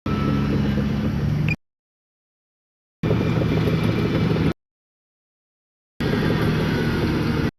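Heavy diesel engine of earthmoving machinery running steadily, with a low hum. It is heard in three stretches of about a second and a half, each starting and stopping abruptly with silence between.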